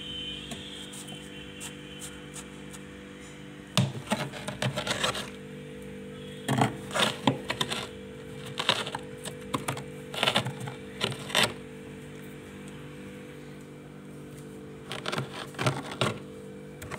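Metal spoon scraping and scooping heavy freezer frost, in several bursts of quick scrapes with pauses between: about four seconds in, from about six and a half to eleven and a half seconds, and again near the end.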